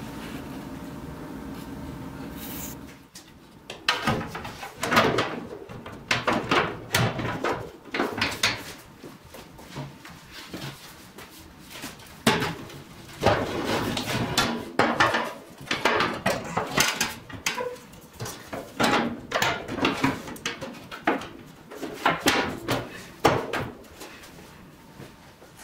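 A steady low hum for the first few seconds, then 1/8-inch sheet-aluminum floor panels clattering, knocking and scraping against the metal tube frame as they are fitted into the chassis, a long run of irregular knocks and rattles with a short ring after some of them.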